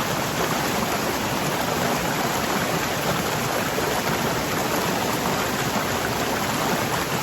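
Waterfall, fast-flowing water rushing in a steady, unbroken wash of noise, with most of its weight in the low and middle range.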